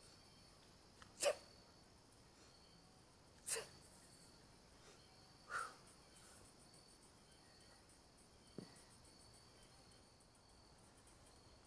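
Three short, sharp forceful exhalations about two seconds apart: the power breaths a lifter gives with each hard kettlebell swing. A soft thud follows as the bell is set down, over steady cricket chirring.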